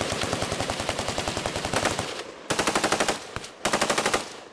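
Automatic gunfire from machine guns: a long, continuous stream of rapid shots that stops about two seconds in, followed by two short bursts of rapid fire, each under a second long.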